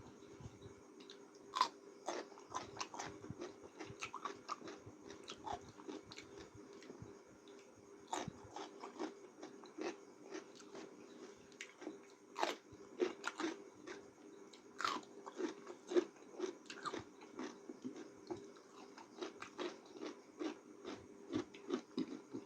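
Close-miked eating sounds of someone chewing noodles: many irregular wet clicks and smacks of the mouth, over the steady hum of a room fan.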